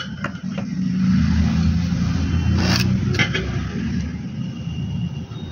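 A low, steady engine rumble, like a motor vehicle running close by, that swells about a second in and eases off near the end. A few light taps and rustles of paper being handled sound over it.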